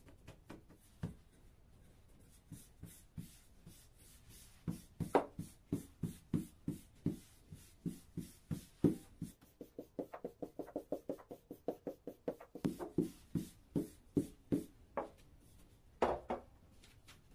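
Long rolling pin being rolled back and forth over a stack of thin baklava dough sheets on a wooden table, making a run of soft knocks. There are a few scattered knocks at first, then a steady two to four a second from about four seconds in, and one louder knock near the end.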